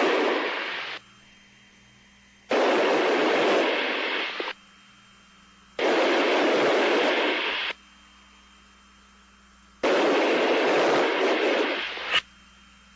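Bursts of static-like noise cutting in and out abruptly, four times, each lasting one to two seconds, with a faint steady hum between them.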